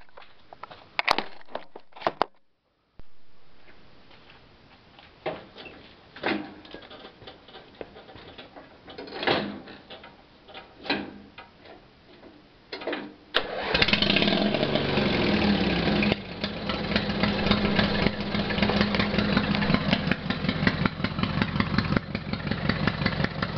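Scattered knocks and clicks, then about halfway through a homemade riding lawn mower's engine starts suddenly and runs steadily through its exhaust, its exhaust leak freshly repaired.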